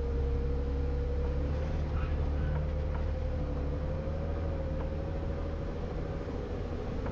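Jeep engine running steadily with a low rumble and a steady whine over it, and a few faint clicks.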